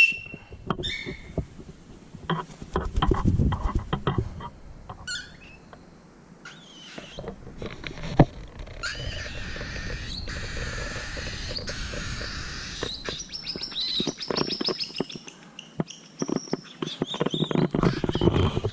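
A pet bird chirping in short high calls, among scattered knocks, taps and rustling.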